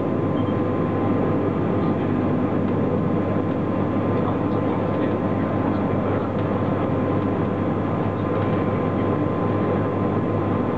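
Steady running noise of the GoldenPass Panoramic metre-gauge electric train heard from inside its front lounge: wheels on rails and the car's rumble, with a thin steady tone above it.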